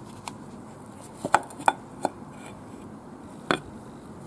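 A scattering of sharp clicks and knocks from a motorcycle's metal front sprocket cover being pulled off the engine case and handled. The loudest come in a quick run in the middle, with one more near the end.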